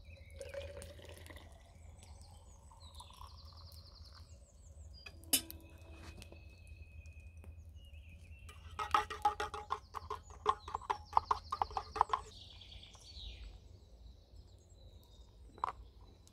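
Hot water pouring from a metal kettle into an insulated tumbler, the pitch rising as the tumbler fills over the first few seconds, with birds chirping throughout. About nine seconds in comes a quick run of clicks lasting some three seconds, the loudest sound here.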